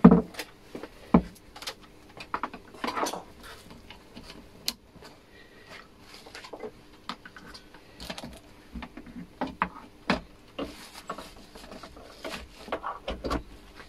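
Scattered clicks and knocks from hands working around a TV main board as a cable connector is plugged in. A thin plastic bag crinkles in the hand near the end.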